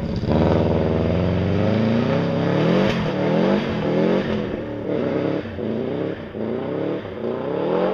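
Rally car engine being driven hard on a snow stage. Its pitch rises and falls several times as the driver works the throttle and gears.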